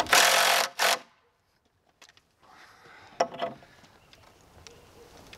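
Cordless impact driver hammering under load for just under a second, then a brief second burst, as it tightens a fastener to pull a bowed wooden post straight. A few faint knocks follow.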